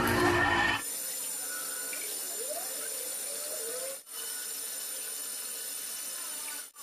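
Metal lathe turning a steel shaft under a cutting tool: a steady, fairly quiet running sound with a high whine and faint short squeaks. A louder machine sound cuts off abruptly about a second in, and the sound drops out briefly twice.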